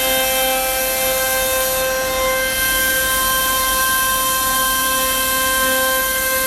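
CNC router spindle running steadily while cutting plywood: a high whine of several held tones over an even hiss.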